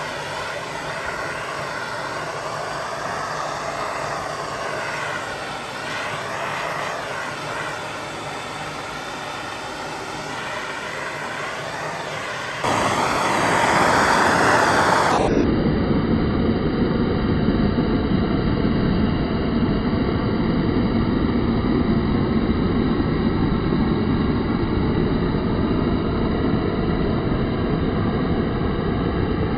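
Handheld gas torch burning with a steady roar of flame, played over metal parts to burn off leftover residue. The flame gets louder about 13 seconds in and then holds steady.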